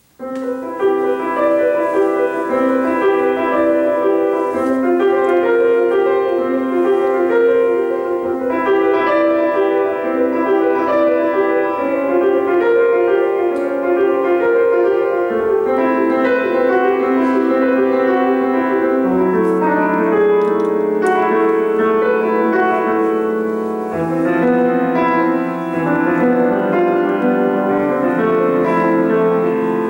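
Solo grand piano playing a classical-style piece that begins right at the start, a flowing run of notes, with lower bass notes added about two-thirds of the way through.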